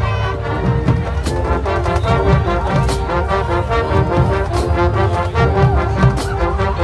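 Marching band playing in the stands: brass with sousaphones over a steady drum beat, with a cymbal crash about every second and a half.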